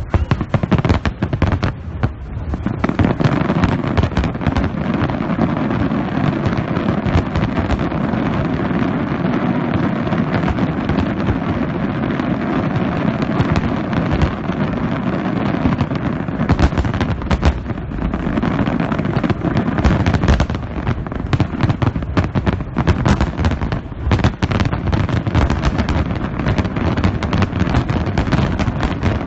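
Fireworks salute going off in a dense, continuous barrage of rapid bangs and crackles.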